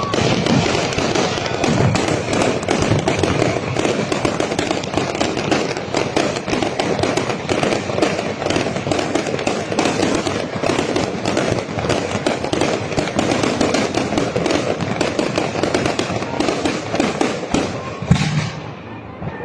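Fireworks going off continuously: a dense, rapid crackle of many small bursts that dies away near the end.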